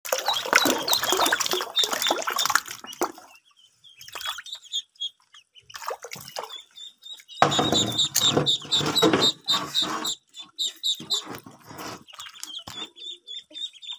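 Ducklings peeping over and over in high, short calls while paddling and splashing in shallow water, with loud bursts of splashing in the first few seconds and again about halfway through.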